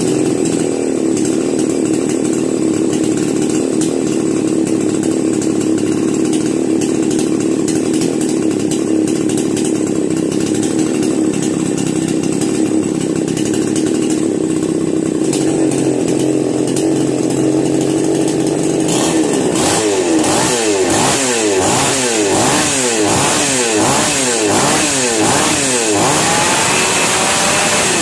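Rebuilt 5200-type petrol chainsaw's two-stroke engine, fitted with a new piston, ring and cylinder, running steadily at idle. From about two-thirds of the way through, the throttle is blipped over and over, about once a second, so the engine repeatedly revs up and drops back.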